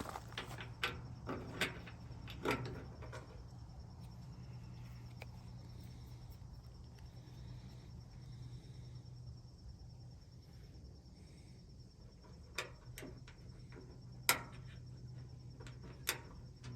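Scattered sharp clicks and knocks, several in the first three seconds and a few more near the end, over a steady low hum and a faint steady high-pitched tone.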